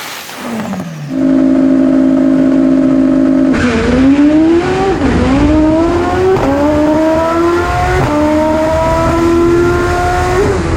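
Race car engine held at steady high revs, then launching and accelerating hard. Its pitch climbs and drops back at about three gear changes before it lets off near the end.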